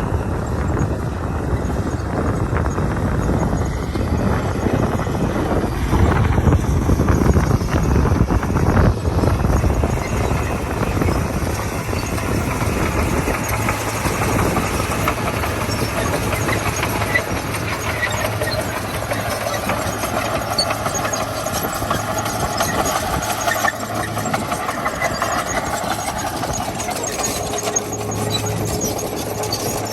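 Komatsu D41P crawler bulldozer at work: its diesel engine running steadily, with a rough low rumble in the first half and a high squeal added from about halfway.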